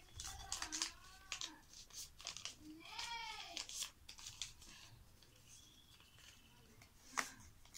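Paper rustling and crinkling as a sheet is handled and folded into a paper boat, with a sharp crackle near the end. Two short cries that rise and fall in pitch sound about a second and three seconds in.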